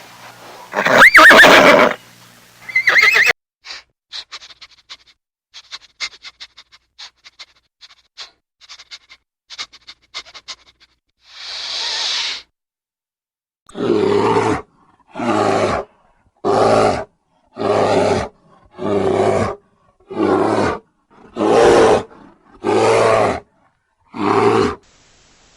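A horse neighing, then a run of faint clicks and a short hiss, followed by about ten pitched animal calls in a steady series a little over a second apart.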